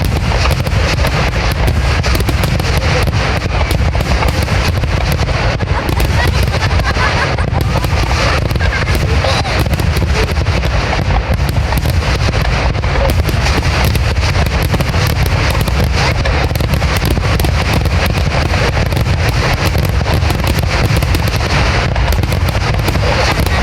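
Fireworks finale barrage: shells bursting in rapid, unbroken succession, a dense stream of booms and crackles over a heavy low rumble.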